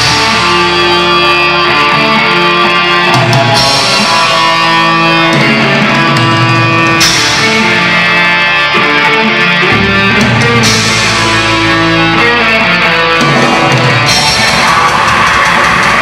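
Heavy metal band playing live, with electric guitar and bass holding sustained chords that change about every three and a half seconds.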